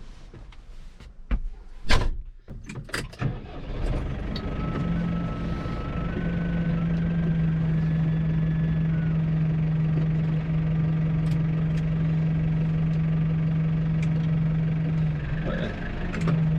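A few knocks and a loud thump about two seconds in, like a vehicle door being shut. Then a farm vehicle's engine starts and runs steadily with a constant low hum.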